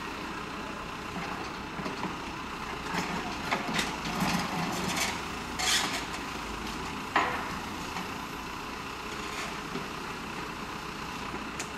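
Caterpillar backhoe loader's diesel engine running while its bucket dumps soil and broken pavement into a steel dump-truck bed. The rubble clatters down in a run of crashes a few seconds in, followed by a single sharp knock.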